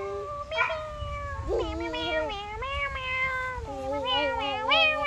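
Domestic cat meowing in a run of about four long, drawn-out calls, each about a second long, their pitch wavering.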